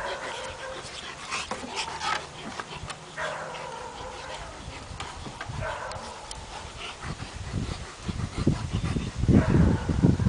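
Kuvasz dogs playing: several short whines. From about eight seconds in, a run of loud low thumps and scuffling.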